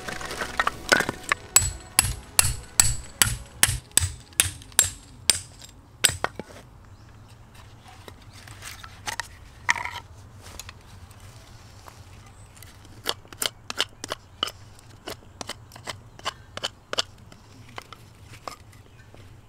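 A quick, even series of sharp knocks, about two or three a second, that stops about six seconds in; scattered lighter clicks follow later.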